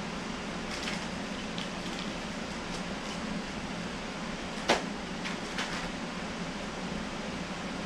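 Clear plastic tackle box of sinkers being handled: light plastic clicks and rattles, with one sharp click a little past halfway, over a steady background hum.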